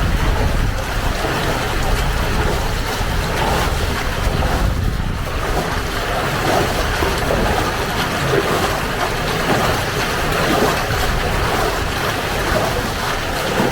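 Archimedes screw hydro turbine churning water from a mill leat: a steady rush of water, with wind buffeting the microphone.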